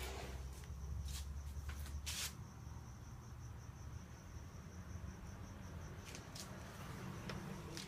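A cricket trilling steadily in an even, fast pulse, over a steady low rumble, with a few sharp clicks.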